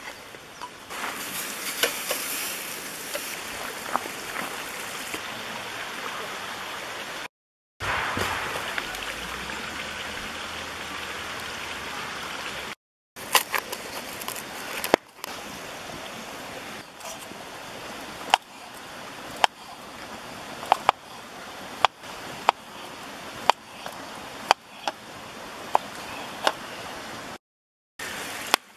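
Steady rushing outdoor background noise. About halfway through it is joined by a series of sharp knocks, roughly one a second: a knife cutting down onto a wooden cutting board as button mushrooms are sliced.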